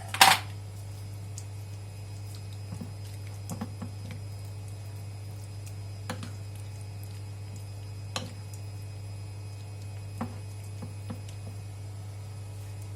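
Marinated chicken wings being handled in their sauce: soft wet squishes with light clicks and knocks at irregular intervals, one sharper, louder knock right at the start, over a steady low electrical hum.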